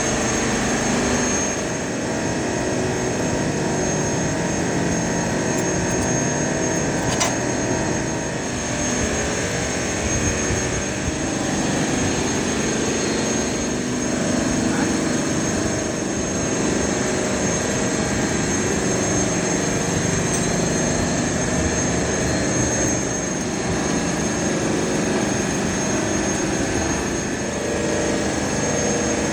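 Heavy machinery running with a steady drone, a constant high whine over a low rumble.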